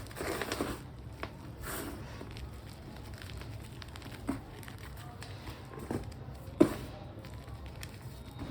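Teal green reformed gym chalk being crushed: a few crisp crunches and crumbling near the start, then scattered sharp snaps, the loudest about two-thirds of the way through.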